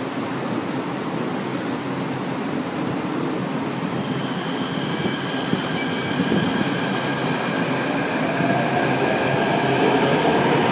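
São Paulo Metro fleet P train pulling out of the platform: a steady running noise, with an electric traction-motor whine that sets in about four seconds in and grows louder as the train gathers speed.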